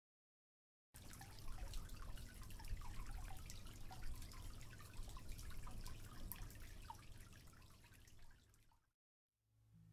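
Shallow water trickling and dripping over rocks, a busy patter of small drips and splashes. It starts about a second in and fades out near the end.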